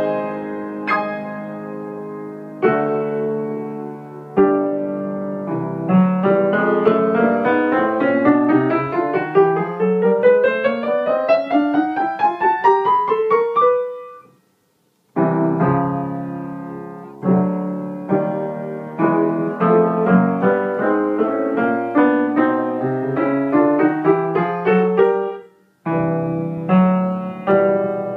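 Grand piano being played: struck chords ringing out, then a run of notes climbing steadily in pitch for about eight seconds. The sound cuts off abruptly about halfway through, then chords resume, with another brief cut near the end.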